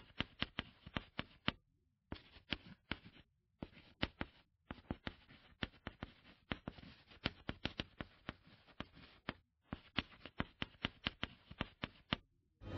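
Light, irregular clicks or taps in short runs with brief pauses, about three to five a second.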